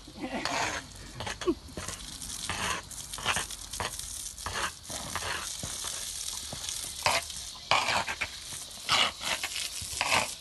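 Water hissing from a garden hose spray as horses are hosed down, rising and falling in irregular surges, with the strongest ones about seven and nine seconds in.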